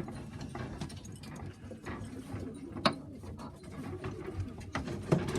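Pigeons cooing in a loft, with scattered clicks and taps throughout and one sharper knock about three seconds in.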